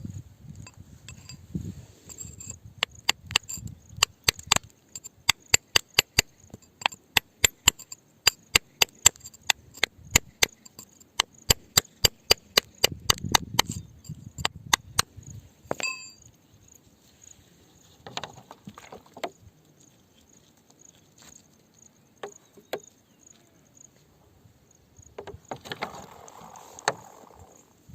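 A hand tool, likely a hammer, striking rock in a quick run of sharp blows, about three a second, for some twelve seconds. Then a few scattered single knocks follow. Crickets chirp steadily in the background.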